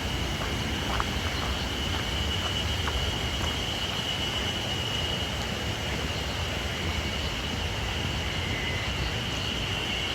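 Steady rushing noise of a waterfall, with a steady high-pitched whine running over it.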